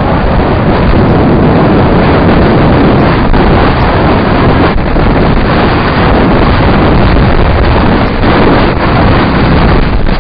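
Loud, steady wind noise buffeting the microphone of a camera riding on a mountain bike downhill, mixed with the rumble of knobby tyres rolling over a dirt track.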